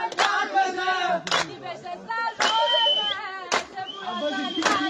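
Group hand clapping in a steady beat, about one clap a second, with voices singing over it.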